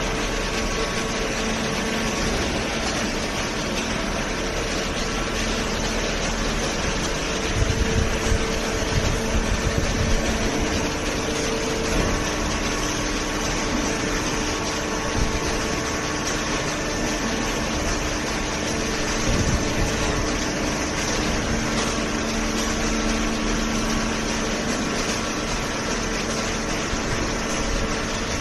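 Hydraulic cardboard baler running, its motor and hydraulic pump giving a steady hum over a broad hiss, with a few low knocks about a third of the way in.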